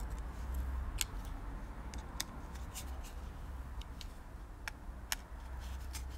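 Small irregular clicks and taps of a screwdriver on the screws of a Bing carburettor's diaphragm cover as they are nipped up tight, over a low steady hum.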